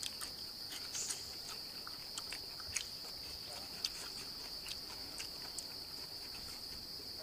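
A steady, high-pitched drone of insects in the forest, with scattered small clicks over it.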